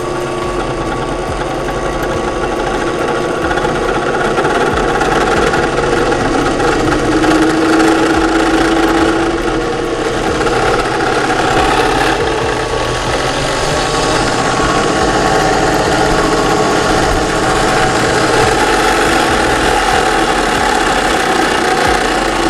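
WEN variable-speed drill press running free with no load, its motor and spindle making a steady mechanical hum with several held tones. The pitch of one tone shifts slightly about a third of the way through.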